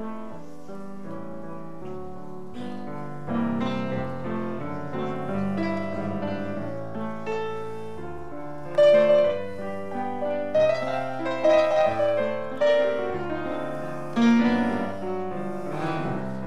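Grand piano played solo: chords with a melody line over them, with several louder struck notes in the second half.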